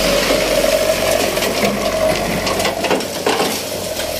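Hino dump truck's engine running with the tipper bed raised, a steady whine over the engine. From a little past halfway, short clattering knocks as gravel and stones spill from the tailgate onto the road while the truck moves forward spreading its load.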